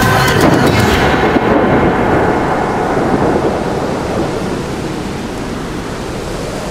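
Thunderstorm sound effect: steady rain with a low rumble of thunder, slowly fading. The sped-up song cuts out about a second in, leaving only the storm.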